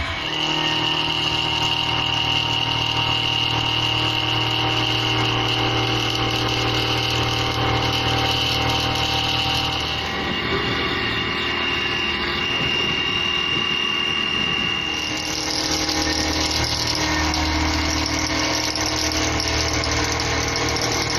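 SM-42 mini CNC milling machine running, its 2 HP brushless spindle giving a steady high whine over a mechanical hum, with the sound shifting about ten seconds in and again about fifteen seconds in.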